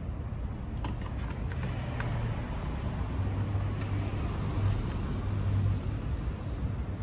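A motor vehicle passing in the street, its low engine rumble swelling about halfway through and fading, over steady outdoor traffic noise. A few light clicks about a second in.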